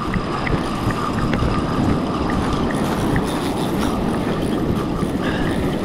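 Spinning reel being wound under load against a big fish, a steady whir with scattered light clicks, over heavy wind and surf noise.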